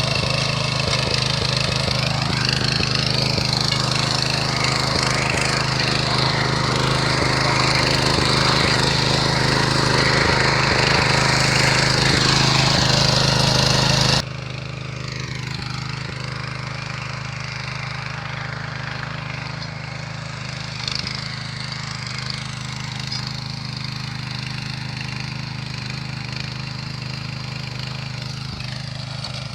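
Small engine of a motor cultivator (tiller) running steadily, with a noisy rasp over the engine note. About halfway through it abruptly becomes quieter and carries on at the lower level.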